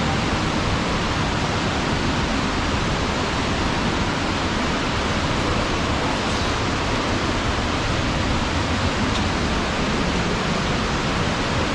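Waterfall in flood: a steady, loud rush of falling water.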